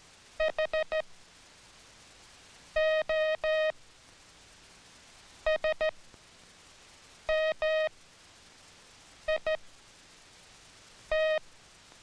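Hand-keyed Morse code sounded as beeps at one steady pitch on a code-practice tone box. The operator sends letters made only of dits or only of dahs, in groups about two seconds apart: four dits (H), three dahs (O), three dits (S), two dahs (M), two dits (I) and one dah (T).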